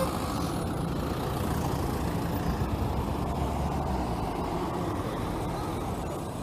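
Road traffic: a motor vehicle's engine running steadily, a low hum under a haze of road noise.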